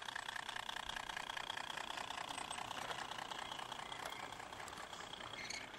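A model garden-railway ore train running along its track: a fairly quiet, steady mechanical hum with a fast even rattle from the locomotive's drive and the loaded tipper wagons rolling.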